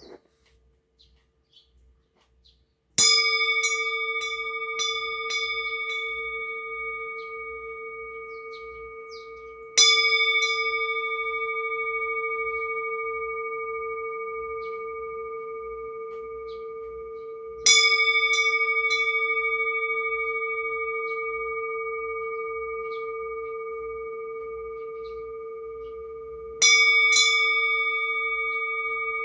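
Metal bell struck four times, about eight seconds apart, the first strike about three seconds in. Each strike rings on as a clear, steady tone with higher overtones and fades slowly, with a few faint ticks just after the strike.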